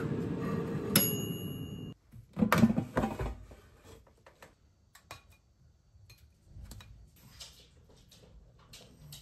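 A steady rushing noise with a sharp click about a second in, cut off abruptly about two seconds in. Then an air fryer basket is pulled open with a brief clatter, followed by faint clicks and rustles of foil and dishes.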